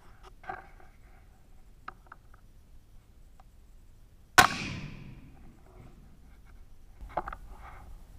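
A single shot from a Brocock Sniper PCP air rifle, turned down to its lowest power setting, about four seconds in: a sharp crack that dies away over about half a second. A few faint clicks come before and after it.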